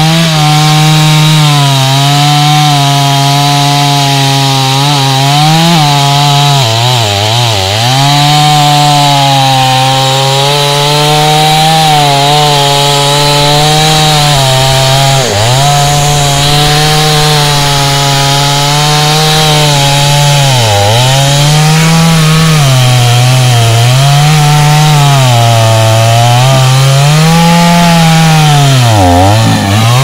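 Gasoline chainsaw running at high revs while cutting through a thick tree trunk. The engine pitch dips and recovers now and then, about every two seconds near the end, as the chain is worked into the wood under load.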